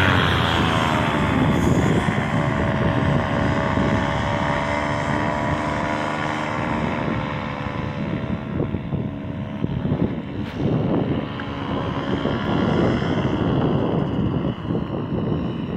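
Paramotor engine and propeller droning as the paramotor flies past and climbs away, the pitch dropping in the first second as it passes and the sound slowly fading. Wind buffets the microphone more and more as the engine fades.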